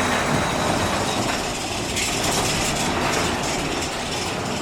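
Big Thunder Mountain Railroad mine-train roller coaster running along its track, a steady rumble and rattle of the cars and wheels. A brighter hiss joins in for a second or so around the middle.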